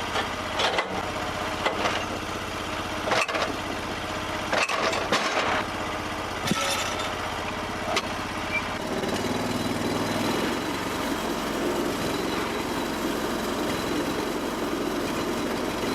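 Portable band sawmill's engine running, with several sharp knocks and clunks in the first seven seconds as a big log is rolled with the mill's log turning assist. About nine seconds in, the engine sound turns steadier and a little louder.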